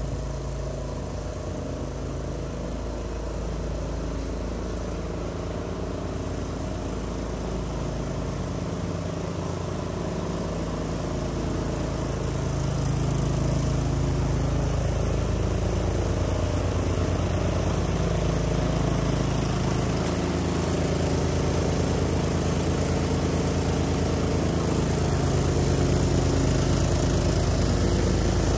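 Cub Cadet 760 ES 33-inch walk-behind mower's engine running steadily while mowing, getting louder about halfway through and again near the end as the mower comes closer.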